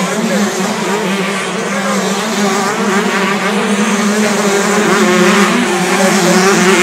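Several motocross bikes racing on the track, their engines revving up and down over one another, growing a little louder toward the end.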